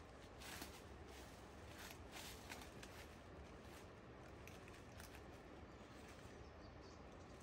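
Near silence: faint outdoor ambience with a few soft clicks and rustles.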